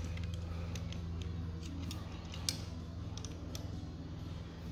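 Pliers gripping and turning a small brass barbed hose fitting on its threads, giving a few scattered light metal clicks, one louder about two and a half seconds in. A steady low hum runs underneath.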